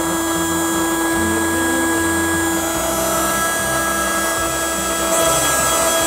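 Small battery motor of a toy Henry vacuum cleaner running with a steady whine; its tone shifts a little under halfway through.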